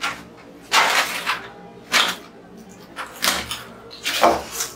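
Potato chips crunching and crackling as they are eaten from bowls, in about half a dozen short, uneven crackly bursts.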